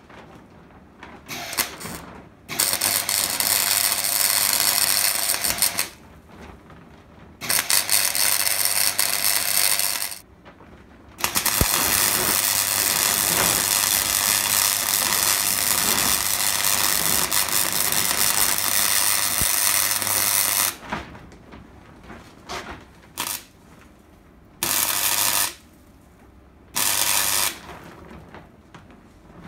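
MIG welder seam welding a steel bracket onto a chassis rail: a steady crackling hiss from the arc with a low buzz under it. It comes in three long runs, the longest about nine seconds, with short tack bursts just after the start and again in the last few seconds.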